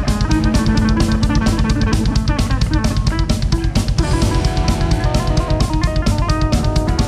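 A live rock band plays electric guitar, bass guitar and a full drum kit, with a rapid, steady drum beat and cymbals under the shifting guitar lines. The guitar part changes to more held notes about four seconds in.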